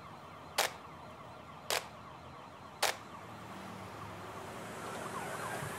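Quiet break in electronic background music: a sharp percussive hit about once a second over a faint held tone, then a hissing swell that rises toward the end.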